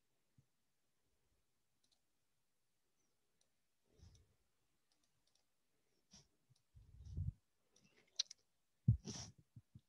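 Mostly silence, broken by a few faint clicks and soft knocks, the loudest about nine seconds in.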